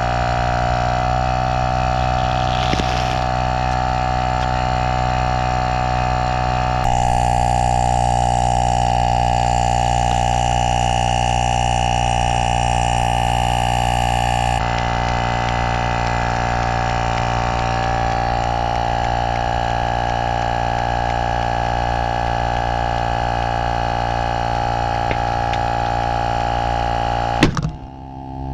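Portable electric air compressor running steadily with a constant mechanical hum while inflating a soccer ball through its hose; the hum sags slightly in pitch about a second in as the load rises. It cuts off with a sharp click near the end.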